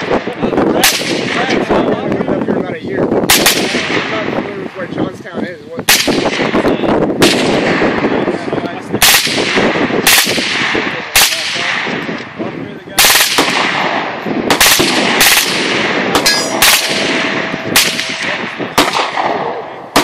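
Troy AR-15 rifle fitted with a suppressor, fired in slow semi-automatic strings: about fifteen shots at uneven spacing, one to two and a half seconds apart, each with an echoing tail. A steady ringing tone lasts about two seconds near the end.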